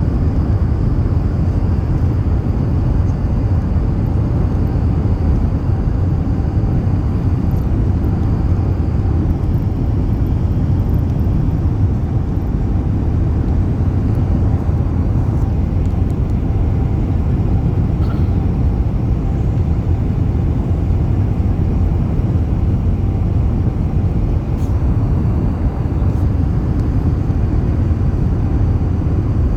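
Airbus A380 making a steady low rumble that stays even throughout, with no rises or sudden sounds.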